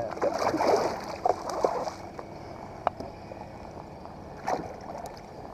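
Water splashing and sloshing at a kayak's side as a brown trout is held in the water by hand, settling after about two seconds into quieter lapping with a couple of light knocks.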